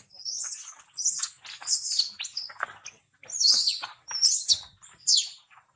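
Baby monkey screaming in distress while a young monkey drags it over the stones: a rapid string of shrill, falling squeals, about one every half second, that stops shortly before the end.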